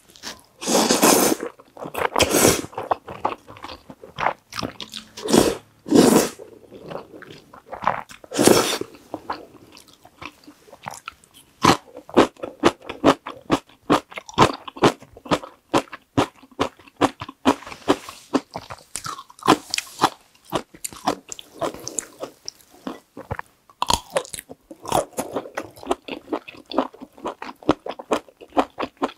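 Close-miked eating of thick, sauce-coated Carbo Buldak stir-fried noodles: several long slurps of noodles in the first nine seconds or so, then steady wet chewing with quick, sharp smacking clicks.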